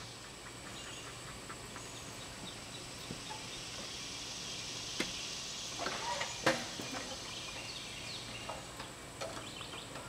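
Quiet outdoor ambience with faint high chirps, and a few sharp knocks and clunks about halfway through as a man climbs up into the seat of a tractor.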